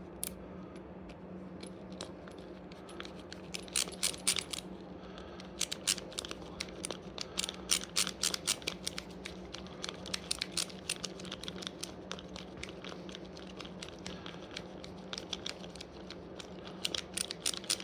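Irregular runs of sharp metallic clicks and clinks from hand tools working a small bolt into the engine, over a faint steady hum.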